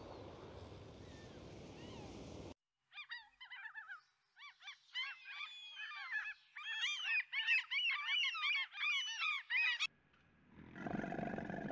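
A steady rush of sea noise cuts off abruptly after a couple of seconds. Then a flock of gulls calls in a dense chorus of short, overlapping, rising-and-falling cries, thickest in the second half. A low growling sound begins near the end.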